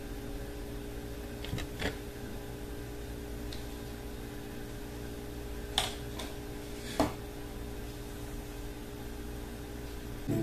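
Steady low room hum with a few light plastic knocks as a clear plastic cup and enclosure are handled: one about two seconds in and two more a few seconds later.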